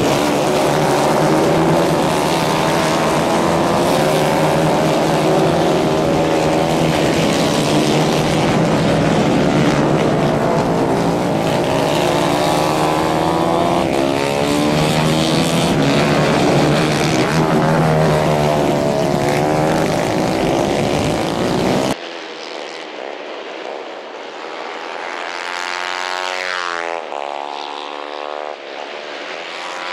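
A pack of 150 cc racing kart engines running hard together, a dense engine drone whose pitch wavers up and down as the karts accelerate and lift through the corners. About two-thirds of the way through the sound cuts abruptly to quieter, more distant kart engines, with pitch rising and falling as they pass.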